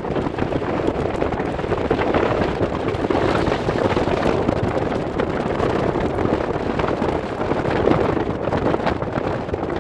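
Wind buffeting the microphone on a moving ferry's open deck, a steady rushing noise.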